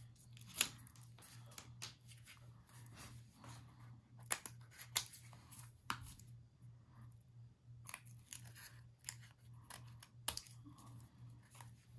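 Small craft scissors snipping paper in scattered short cuts, with paper being shifted and handled between snips, over a faint steady low hum.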